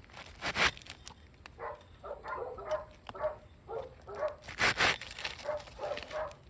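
A dog barking repeatedly in short yips, about two a second. Two louder scraping rustles break in, about half a second in and near five seconds in.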